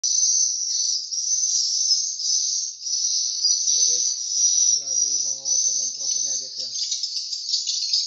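Edible-nest swiftlets chirping, a dense, unbroken mass of rapid high-pitched calls.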